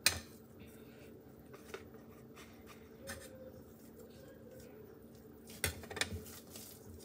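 Kitchen containers and utensils being handled while biscuit dough is shaped: a sharp knock at the start, scattered soft clicks, then a few knocks and clatters about five to six seconds in. A steady low hum runs underneath.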